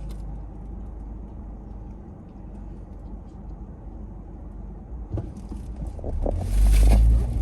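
Car engine and road noise heard from inside the cabin, a low steady hum that grows louder over the last couple of seconds, as when the car pulls away and speeds up.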